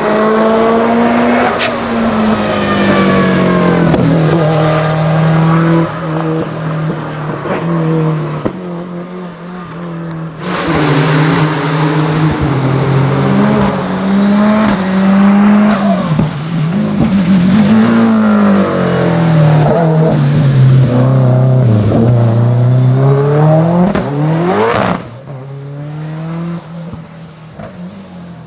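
Hill climb race car engine at full throttle, pitch climbing and dropping again and again as it shifts up and lifts for corners. Near the end the revs shoot up steeply, then the sound fades as the car pulls away.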